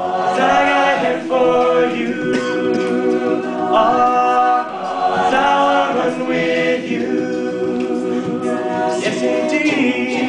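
All-male a cappella group singing held chords in close harmony, the voices standing in for the band's instruments between sung lines.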